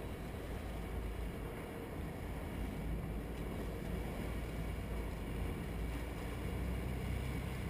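Steady engine and water noise of a sportfishing boat, with water churning at the stern and wind on the microphone.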